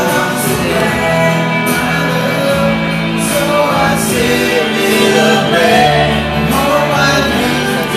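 Live band playing a song with a singer: a wavering sung line over sustained instrument notes and regular drum hits.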